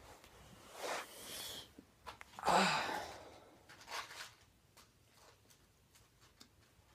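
A person's breath sounds: three short breathy bursts, the loudest about two and a half seconds in.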